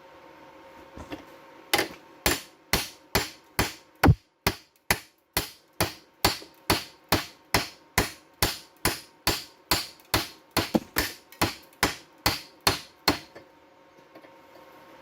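Hammer striking metal in a steady run of about two dozen sharp blows, a little over two a second, stopping shortly before the end.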